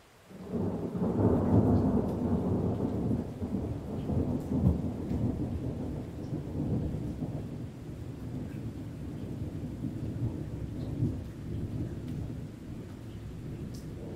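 A peal of thunder breaks about half a second in and rolls on as a long low rumble. It is loudest over the first couple of seconds, with a sharper crack near the middle, then slowly eases. Light rain drips faintly underneath.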